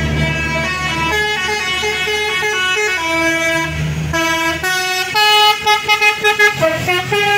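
Basuri telolet multi-tone bus horn playing a tune of held notes that step up and down in pitch. In the last couple of seconds it breaks into quick short toots, about five a second. A bus engine runs low underneath in the first half.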